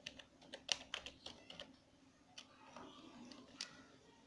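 Computer keyboard typing, heard faintly: a quick run of keystrokes, then a pause and a couple of single key presses.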